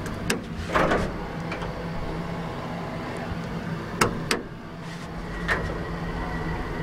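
1986 Tal traction elevator, heard from inside the small car: button clicks and clunks over a steady low machinery hum. About five seconds in a thin steady whine comes in, with a knock just after.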